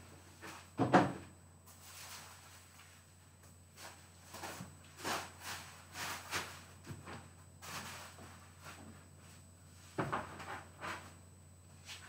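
Scattered knocks, clicks and light handling noises in a small room, like someone moving about and setting things down. The loudest knock comes about a second in.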